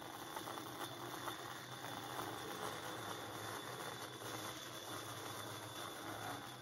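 Bandsaw running steadily, its blade cutting a curve through an end-grain hardwood chopping board as the board is fed by hand.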